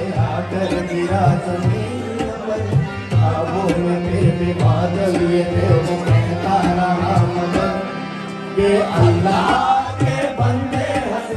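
Live South Asian-style song: a man singing into a microphone over harmonium and a hand drum keeping a steady beat. The drum drops out briefly about eight seconds in, then comes back.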